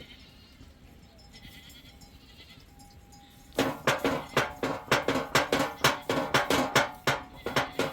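Sheep and goats bleating. Faint at first, then loud, pulsing calls from about three and a half seconds in.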